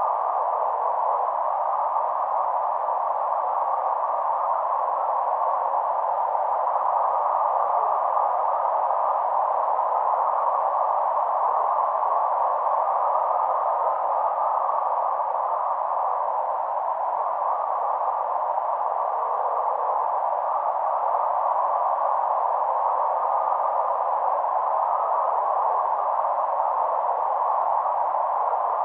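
Aurora borealis light flicker picked up by a photomultiplier tube and turned straight into audio, bandpass filtered to around 1 kHz. It is a steady narrow band of hiss, carrying the faint chirps and whistles heard in the aurora's fluctuating light.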